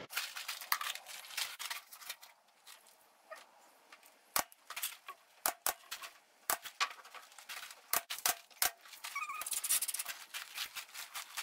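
Pneumatic nail gun shooting nails into spruce boards: a series of sharp pops at irregular spacing, with a short lull a few seconds in.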